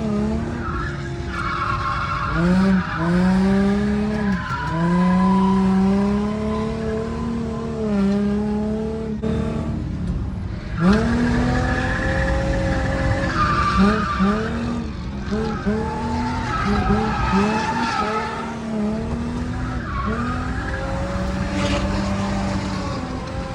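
A drift car's engine revs climbing and dropping again and again under throttle, with a run of quick short blips in the middle, while the tyres skid and squeal.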